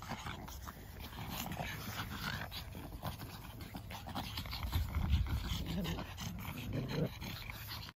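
Pekingese dogs panting and scuffling at play on grass, with a low rumble about five seconds in; the sound cuts off just before the end.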